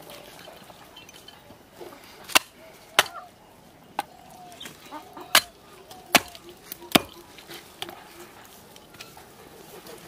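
Cleaver chopping through a large magur catfish on a wooden tree-stump block: about six sharp, separate strikes at uneven spacing.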